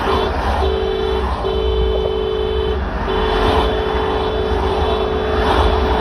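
Car horn sounding in a run of long, uneven blasts with short gaps between them, over the low rumble of vehicles.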